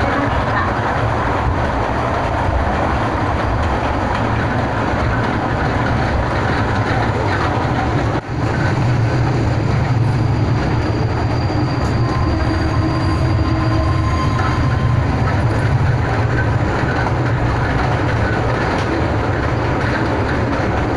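Kurobe Gorge Railway narrow-gauge train running along the track: a steady rumble of wheels and rails, heard from an open-sided carriage.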